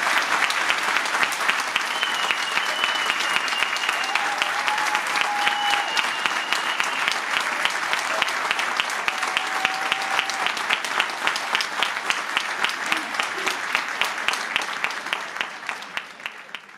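Audience applauding. The clapping falls into a steady clap in unison, about three claps a second, partway through, and fades out near the end.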